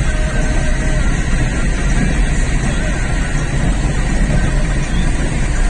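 Steady vehicle rumble heard from inside, a loud even roar strongest in the low end with no changes.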